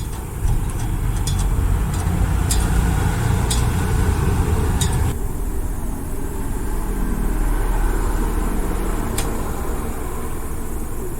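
Steady low rumble of road traffic, with several sharp clicks in the first five seconds. About five seconds in the sound changes abruptly and turns duller.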